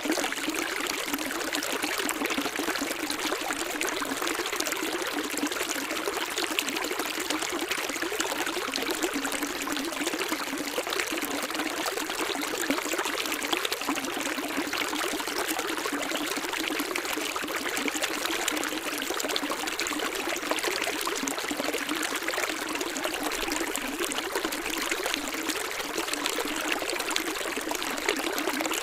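Running water of a small stream, a steady trickling flow.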